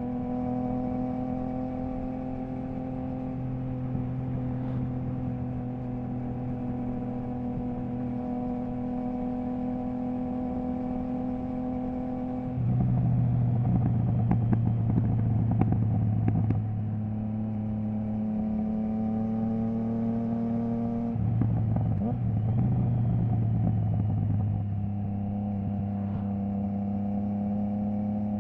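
Triumph Trident 660's inline three-cylinder engine through a Zard stainless full exhaust system with the baffle removed, running steadily under way. About halfway through it turns louder and rougher with crackles for a few seconds, settles, and does so again near the end.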